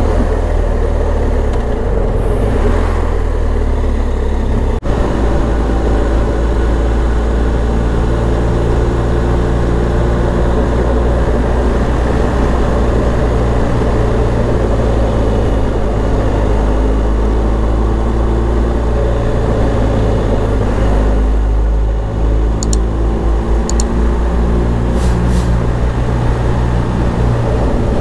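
BMW R1250 GS Adventure's boxer-twin engine running while under way, with steady road and wind noise; the engine note shifts slightly in pitch.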